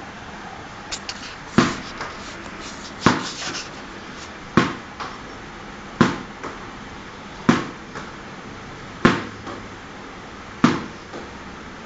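Sharp knocks repeating at an even pace, about one every second and a half, seven in all, each with a brief ringing tail, over a steady background hiss.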